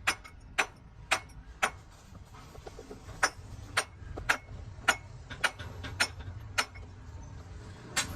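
Sharp taps at a steady pace of about two a second, with a short pause partway through, over a faint low hum.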